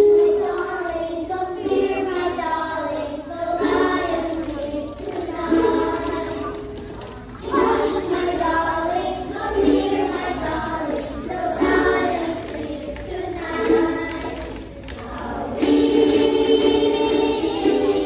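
A group of children singing together in sung phrases, with short breaks about seven and fifteen seconds in.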